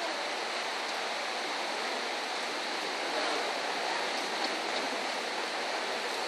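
Steady, even rushing background noise of a large hall, with no distinct event standing out.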